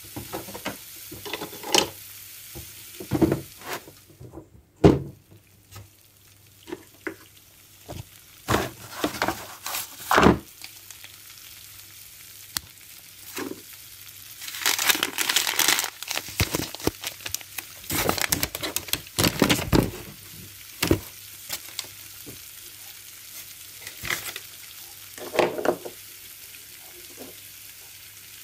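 Irregular clicks, taps and knocks of plastic toy-kitchen pieces being handled, with a paper bag rustling and crinkling in a denser stretch about halfway through.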